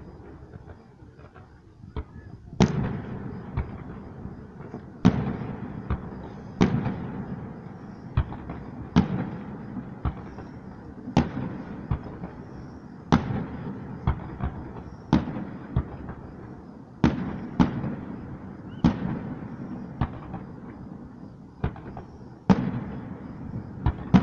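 Firework shells bursting in the sky one after another. A sharp bang comes roughly every second from about two seconds in, and each trails off in an echoing rumble.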